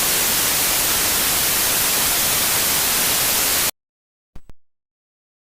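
Analog television static: a steady hiss of white noise that cuts off suddenly a little before four seconds in. A brief burst of noise follows about half a second later, then silence.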